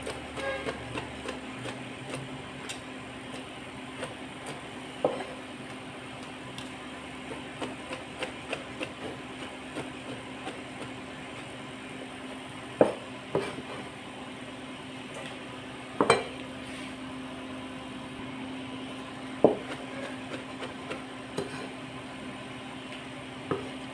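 Kitchen knife slicing browned pork belly on a plastic cutting board: a run of light irregular chopping taps with a few louder knocks now and then, over a steady low hum.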